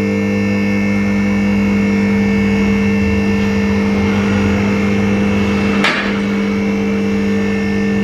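Background music: steady sustained synth-like chords, with a sharp hit about six seconds in.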